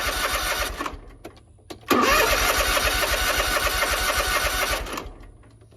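Hustler Raptor zero-turn mower's engine cranking on the electric starter without catching, in two tries: the first cuts off just under a second in, the second runs from about two seconds to five. A crank-no-start, which the mechanic traces to spark plugs fouled almost to no gap.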